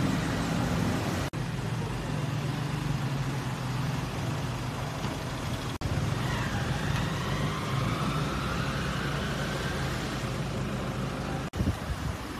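Road vehicle engines idling and rolling slowly through a checkpoint, a steady low hum. A faint high whine rises slowly in the middle, and the sound drops out briefly three times.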